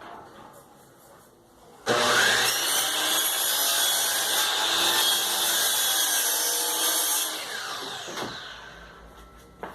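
Electric power tool working wood: it starts abruptly about two seconds in, runs steadily for about five seconds, then its pitch falls as the motor winds down to a stop.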